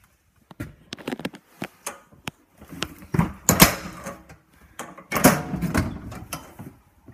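Irregular knocks, clicks and rustling, close and loud, with the strongest clattery knocks about three and a half seconds in and again around five seconds.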